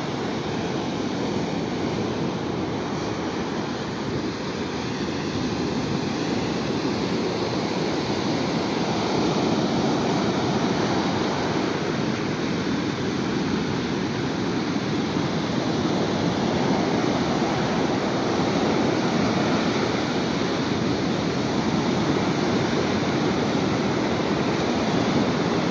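Ocean surf breaking and washing up on a sandy beach: a steady rush of waves, a little louder in the second half.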